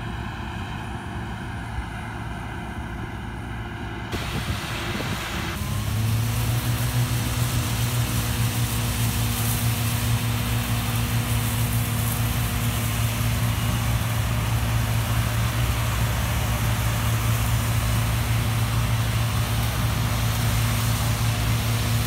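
Claas Mega combine harvester running, fainter and more distant at first; from about six seconds in it runs close by with a steady engine hum while unloading grain through its auger into a trailer.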